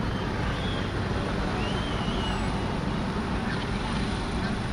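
Steady din of a large outdoor crowd gathered among packed cars: running engines and traffic noise mixed with distant voices.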